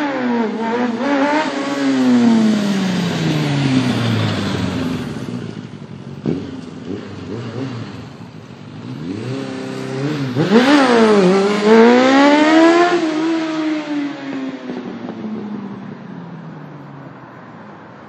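1998 Suzuki GSX750F inline-four motorcycle engine revved hard twice, for wheelie attempts on a clutch the owner says is slipping badly. Each time the note jumps up, then winds down slowly over several seconds. The second run, about ten seconds in, dips briefly before climbing again.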